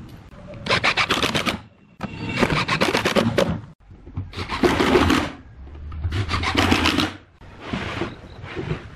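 Cordless drill-driver driving screws into a wooden table frame, in about five runs of a second or so each with short pauses, each with a fast rattling.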